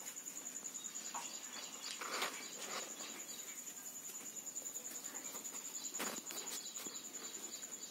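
Insects, such as crickets, trilling steadily in a faint, high, even pulse, with a couple of soft knocks, one about two seconds in and one near six seconds.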